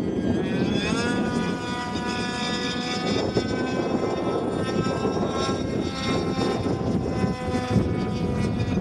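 Engine of a radio-controlled model airplane running in flight, a whine whose pitch rises about a second in and then drifts up and down, under heavy wind buffeting on the microphone.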